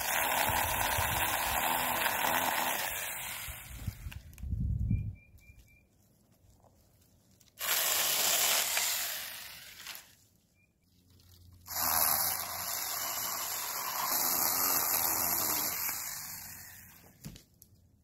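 Cordless Saker mini chainsaw cutting through brush branches in three runs, each starting abruptly and winding down over a couple of seconds. The owner says its chain needed sharpening and its battery was running flat.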